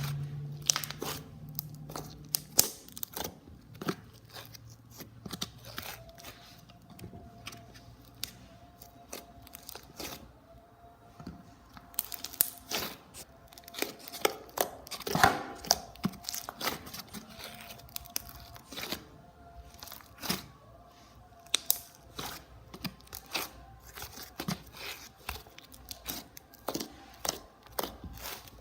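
Homemade PVA-glue-and-borax slime being squished, stretched and poked by hand, giving irregular sticky pops and clicks.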